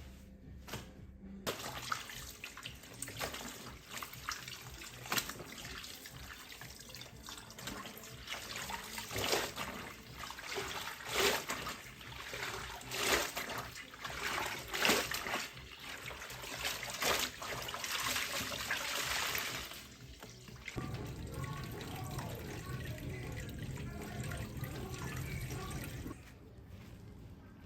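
Water running from a tap into a sink, splashing unevenly as it runs. The water stops about twenty seconds in.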